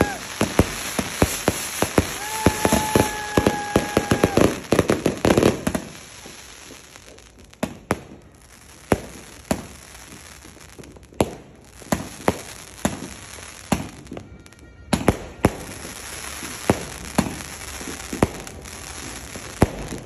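160-shot multi-shot fireworks cake firing. There is a fast run of bangs and crackling for the first five seconds, with a steady held tone for about two seconds near the start. Then come sparser single shots, roughly one a second.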